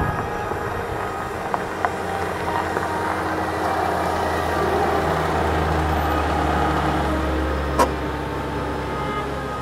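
A small silver Ford Fiesta hatchback driving slowly along an asphalt road and passing close by, its engine and tyre hum growing louder and then easing off. A single sharp click comes near the end.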